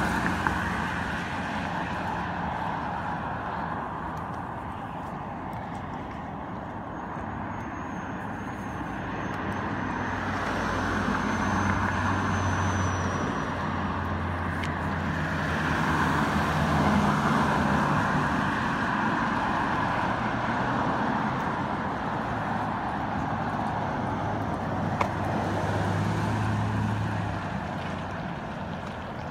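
Road traffic on a multi-lane street: cars and trucks passing, their engine hum and tyre rush swelling and fading several times.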